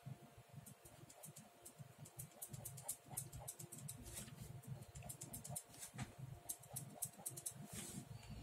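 Ballpoint pen scratching on sketchbook paper: faint, quick strokes in irregular runs, with the soft rustle of the hand moving over the page.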